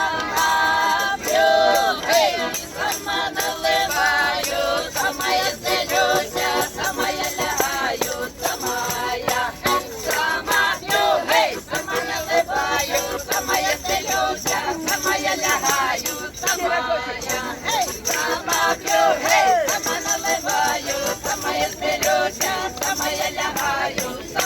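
Live song in Ukrainian: singing over instrumental backing with a steady, rhythmic beat.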